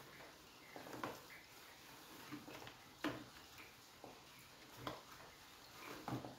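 A damp cotton cloth wiping the body of a mixer grinder: faint rubbing strokes with a few light knocks, about five in all, spaced a second or two apart.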